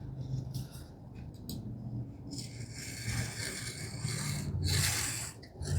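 Rubbing on wood: masking tape being pressed and smoothed down across wooden tambour slats, growing busier about two seconds in.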